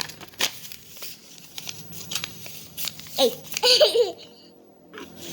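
Sheet of paper being handled and folded, with short crinkles and creases, then a child laughing briefly about three seconds in.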